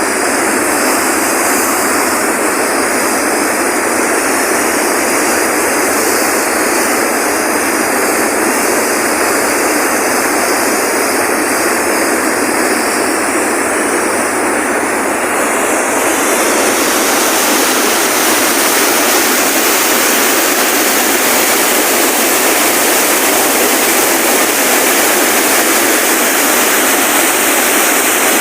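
Loud, steady rushing of water, without pauses or separate strokes; it turns brighter and hissier about halfway through.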